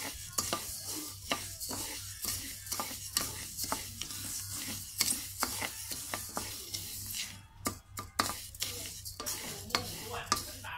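Wooden spatula stirring and scraping glutinous rice grains as they dry-roast in a metal wok, in quick repeated strokes about two or three a second, with the grains rustling and hissing against the pan. The grains are still white, early in the toasting for khao khua, toasted rice powder.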